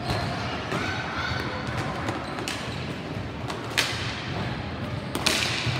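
Ball hockey play: sharp clacks and knocks of sticks striking the plastic ball, and of the ball hitting the floor and boards. There are several scattered hits, the loudest about four seconds in and again near the end.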